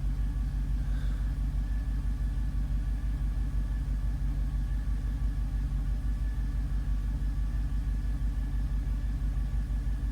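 6.1-litre Hemi V8 of a 2006 Jeep Grand Cherokee SRT8 idling steadily with an even low pulse, warming up from a cold start while it throws a cylinder 5 misfire code (P0305).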